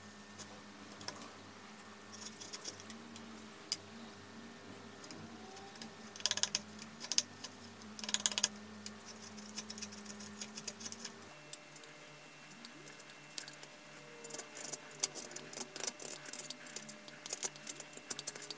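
Hand-forged carving gouge, made from a ball-bearing inner race, paring a softwood block: crisp crackling cuts as shavings curl off, with two longer slicing cuts about six and eight seconds in. In the second half it cuts across end grain in quicker short crackles and ticks, over a faint steady hum.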